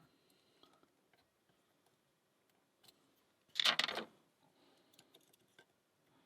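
Lock pick and tension tool working the pin tumblers of a brass three-pin padlock: faint scattered clicks and scratches, with a half-second burst of rapid scraping, as of raking the pins, a little past the middle.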